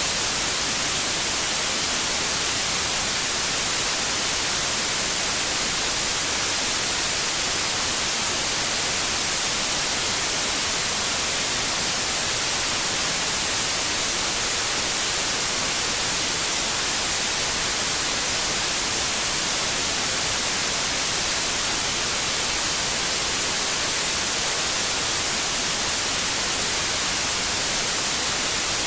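Steady white noise for soothing babies: an even, unbroken hiss, brightest in the treble.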